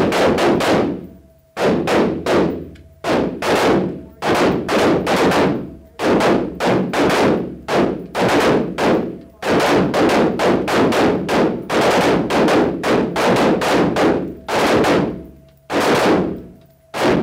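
AR-15-style carbines firing rapid strings of shots, several a second, with short pauses between strings. Each shot echoes off the walls of an indoor range.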